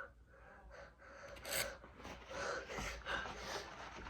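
A person with a cold sniffling and breathing noisily through a stuffed-up nose: a series of short, breathy sniffs, the sharpest about one and a half seconds in.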